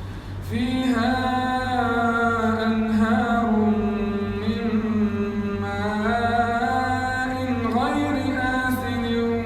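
A man's voice chanting Quran recitation in the melodic tajweed style. After a brief pause it starts about half a second in and draws out long held notes that bend and ornament in pitch.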